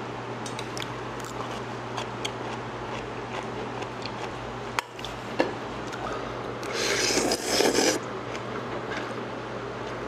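Bibim guksu noodles being slurped, with one long slurp about seven seconds in. Light clicks and taps are heard over a steady low hum.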